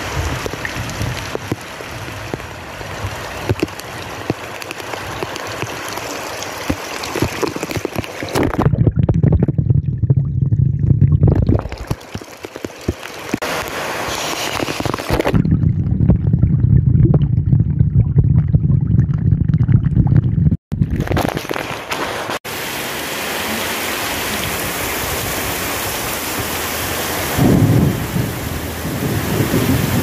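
Heavy tropical downpour: a dense, steady hiss of rain on ground, leaves and roofing. Twice, for a few seconds each, the hiss drops away and the sound turns muffled and low, a loud deep rumble, before the open rain hiss returns.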